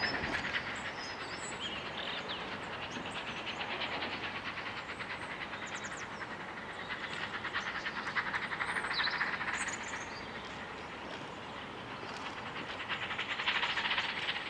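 Steam locomotive working hard out of sight, a rapid, continuous run of exhaust beats that swells and fades. A few birds chirp faintly over it.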